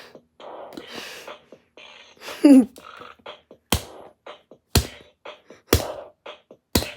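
Bop It toy's electronic beat: a loud falling sound about two and a half seconds in, then a sharp drum hit about once a second.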